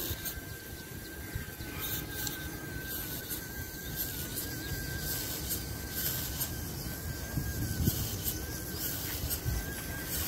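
Small electric tow robot running, its motor giving a steady, slightly wavering high whine over a low rumble of its wheels rolling across rough concrete.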